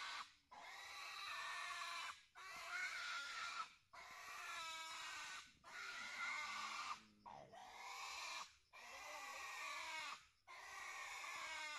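A piglet screaming in distress while held down for castration: about seven long, high-pitched squeals, each broken off by a quick breath.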